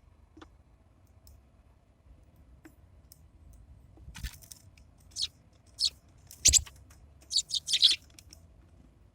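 Sparrows chirping at a feeder: single short high chirps spaced about half a second to a second apart, then a quick run of several chirps near the end. A dull bump sounds under two of the calls.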